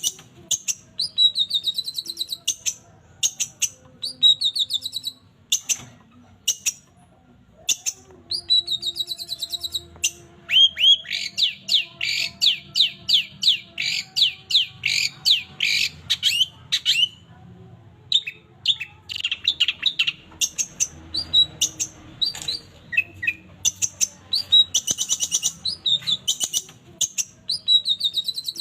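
Long-tailed shrike (cendet) singing: bursts of rapid, high chirping trills, with a denser run of quick sharp notes in the middle.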